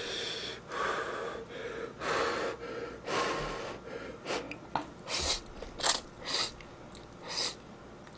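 Close-miked slurping of instant ramen noodles: a string of short, noisy slurps and sharp breaths, about one a second.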